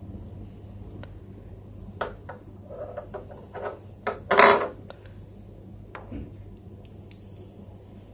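Hollow plastic toy figures handled, knocked together and set down on a hard tabletop: a string of clicks and clacks, the loudest a short clatter about four seconds in. A steady low hum lies underneath.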